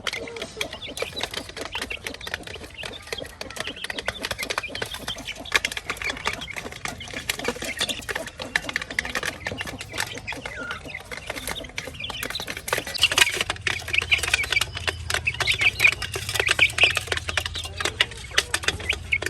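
Chickens pecking rapidly at feed, a dense run of quick taps, with clucking joining in and growing louder about two-thirds of the way through.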